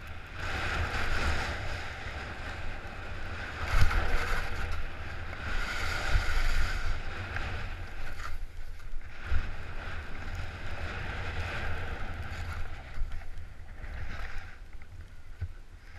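Hiss of a rider sliding through fresh snow, swelling and fading with each turn, over a low rumble of wind on the microphone.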